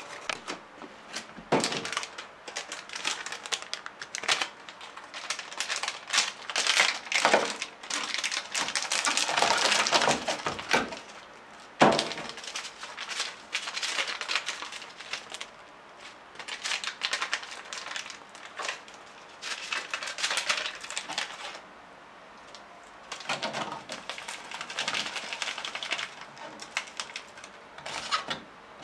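Cup-noodle packaging handled by hand: crinkling and rustling of the peeled-back lid and the plastic seasoning sachets, in irregular stretches with sharp clicks and one loud snap partway through.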